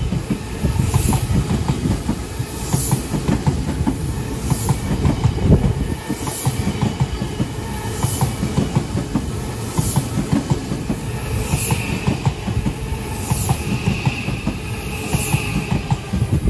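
Odakyu electric commuter train passing close by, its wheels rumbling on the rails with a clickety-clack over the rail joints about every two seconds. A faint high whine joins in during the second half.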